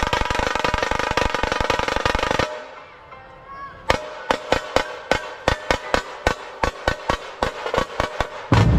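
A dhol-tasha troupe's dhols drumming, dense and loud, stopping about two and a half seconds in. After a short pause a steady beat of sharp single strokes follows, about four a second, and the full drumming comes back in near the end.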